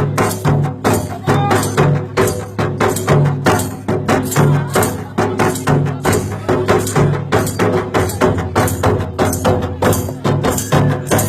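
Music with a fast, steady percussion beat, about three strikes a second, over sustained low notes.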